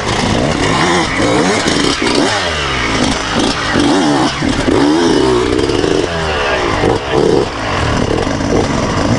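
Several off-road dirt bike engines revving hard, their pitch repeatedly rising and falling as they work under load up a steep, rocky climb.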